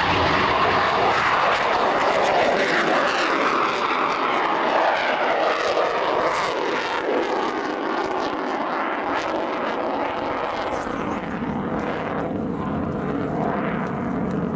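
JASDF F-15 Eagle's twin jet engines as the fighter passes low and climbs away: loud, with a sweeping, falling pitch through the first several seconds, then slowly fading and duller as it climbs away.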